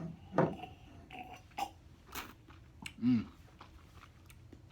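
A person sipping and tasting bourbon: wet mouth clicks and lip smacks as the whiskey is worked around the mouth, with a short hum about three seconds in.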